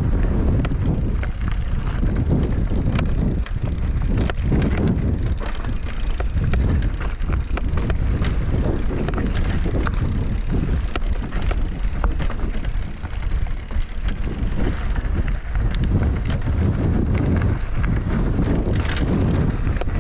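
Wind rushing and buffeting over the camera microphone as a mountain bike is ridden, with frequent clicks and knocks from the bike throughout.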